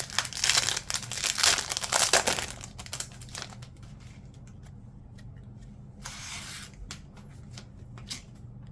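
Foil trading card pack wrappers being torn open and crinkled, with loud ripping over the first three seconds or so, then quieter handling. A second short rip comes about six seconds in.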